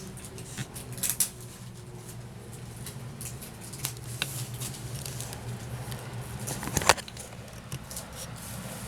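Small handling noises: scattered clicks, taps and rustles, the loudest knock about seven seconds in and a pair about a second in, over a steady low hum.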